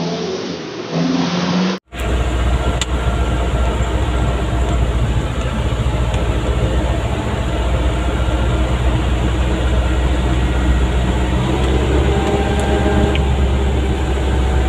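Dump truck engine revving unevenly as it pulls through deep mud; about two seconds in, an abrupt cut to a steady, loud low engine drone and road noise heard from inside the truck's cab.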